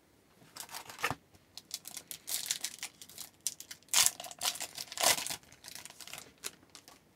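Hockey card pack wrapper crinkling and being torn open, with cards rustling as they are handled. The rustling comes in irregular bursts, loudest at about four and five seconds in.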